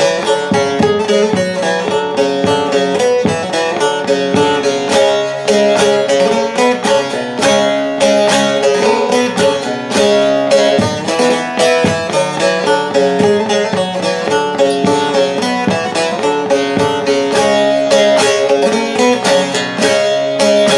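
Bağlama (Turkish long-necked saz) played solo in quick, continuous strokes, the melody of a semah from the Aydın region.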